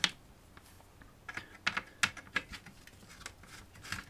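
Light, irregular clicks and taps of a screwdriver working small screws out of a Sinclair ZX81's circuit board and plastic case.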